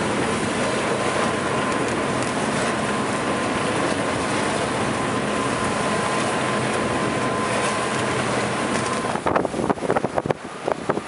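Wind and water rushing past a sailboat under sail in choppy water: a steady rush with a thin steady whistle running through it. About nine seconds in the whistle stops and the sound turns into uneven gusts of wind buffeting the microphone.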